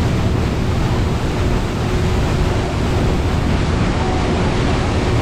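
Steady rushing noise aboard a tour boat under way: the engine's low drone mixed with water and wind noise, with a faint steady hum throughout.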